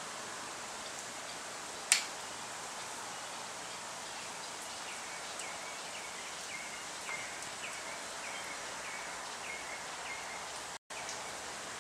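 Steady outdoor background hiss with a small bird chirping repeatedly, about two short chirps a second, through the middle of the stretch. A single sharp click about two seconds in is the loudest sound.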